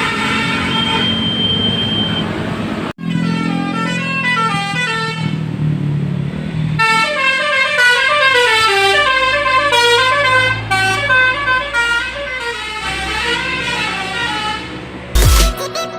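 Bus basuri horn, a multi-trumpet musical air horn, playing a tune of quick notes stepping up and down. The tune breaks off about three seconds in and another horn melody starts. Near the end, loud electronic dance music with heavy bass cuts in.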